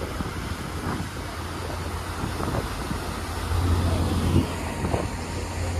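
Passenger ferry's engines giving a steady low drone under a hiss of wind and churning wake, heard from the open upper deck; the drone grows a little louder about halfway through.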